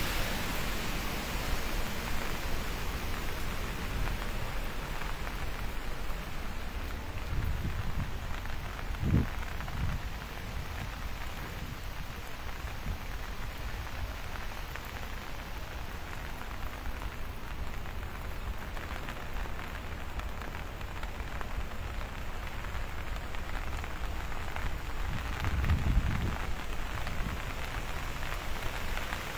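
Steady rushing water noise from the dam's sluice outflow mixed with rain, a little quieter after about ten seconds. Two dull low thumps, about nine seconds in and near the end.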